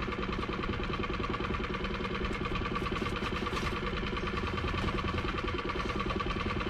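A boat's engine idling steadily, an even hum with a fast regular pulse.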